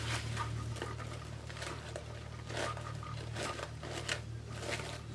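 Poly deco mesh rustling and crinkling in short, irregular spells as hands push a flower stem through it and tuck it behind the wire wreath frame, over a steady low hum.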